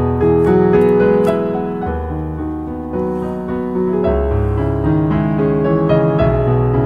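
Background piano music with a moving melody over sustained bass notes.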